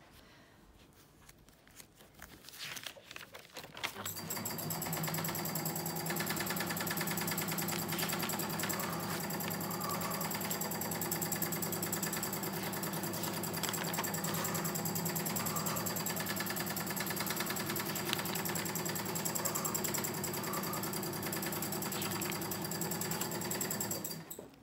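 A sewing machine runs steadily with a fast, even stitching rattle over a constant motor whine. It starts about four seconds in and stops just before the end.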